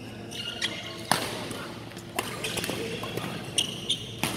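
Badminton rally: several sharp racket-on-shuttlecock hits at uneven gaps of about a second, the loudest a little over a second in, with people talking in the hall behind.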